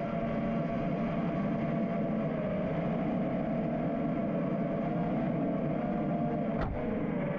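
FPV freestyle quadcopter's four brushless motors (Ethix Stout 2306, 1750 kV) and props buzzing in flight, the whine's pitch wavering as the throttle changes. There is a brief click near the end.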